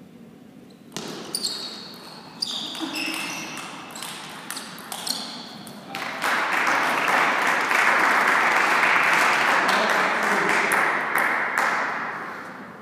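Table tennis rally: the ball clicking off the bats and the table, with shoes squeaking on the court floor. About six seconds in, the point ends and spectators break into loud applause and cheering, which fades near the end.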